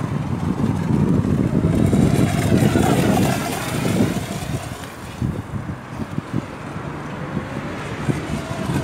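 Electric RC monohull speedboat on a 3S LiPo running flat out, its motor whine gliding up and down in pitch. It is loudest in the first four seconds as the boat passes close, then fades as it runs away across the lake.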